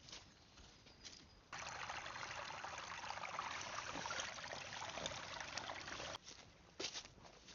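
Forest stream water trickling and splashing. It starts suddenly about a second and a half in and cuts off just as suddenly near the end, with a few light clicks either side.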